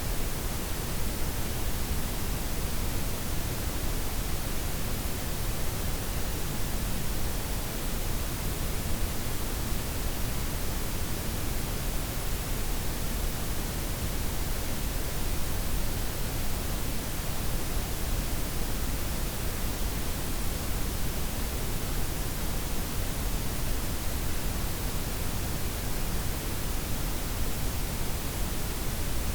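A steady blend of synthetic white, pink and brown noise, an even hiss with a deep rumble beneath and softened highs, unchanging throughout.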